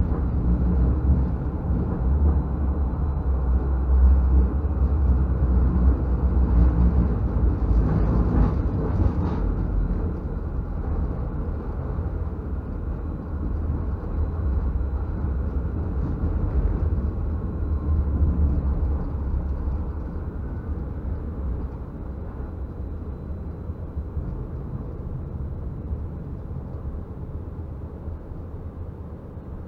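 Stadler Variobahn low-floor tram running along the track with a steady low rumble, a brief rattly passage about eight seconds in, growing quieter over the last ten seconds.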